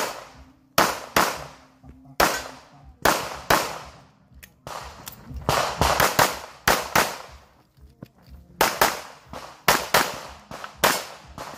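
A .45-calibre single-stack pistol fired rapidly, about sixteen sharp shots, mostly in quick pairs of two, with short pauses between groups.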